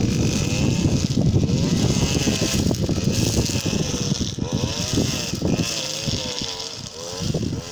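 Petrol brush cutter running as it cuts grass, its engine pitch rising and falling as the throttle is worked.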